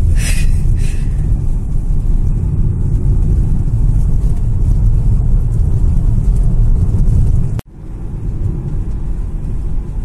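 Steady low rumble of a car driving, heard from inside the moving car. It cuts off abruptly about three-quarters of the way in and resumes a little quieter.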